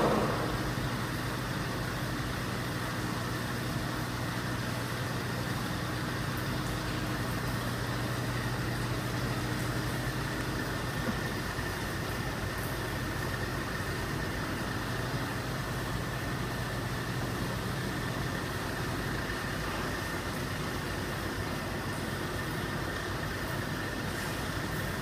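Steady machine hum, like an idling engine or generator: a low drone with a faint high whine over it, unchanging in level.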